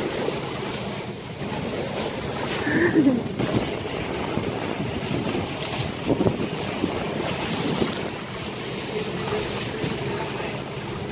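Wind buffeting the microphone over the steady rush and splash of water along the bow of a sailing catamaran under way. There is a brief faint vocal sound about three seconds in.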